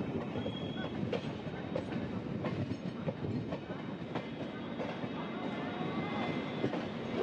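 Duronto Express passenger coach rolling slowly through a station, heard from its open doorway: steady wheel-on-rail rumble with a click-clack about every half second as the wheels cross rail joints and points.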